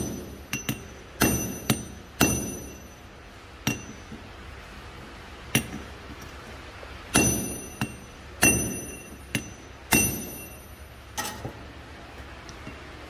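Hand hammer striking a square steel drift driven into a hot steel shaft resting on a steel block, forging a square hole. There are about fifteen irregular blows, some in quick pairs, each with a bright metallic ring. The blows stop about eleven seconds in.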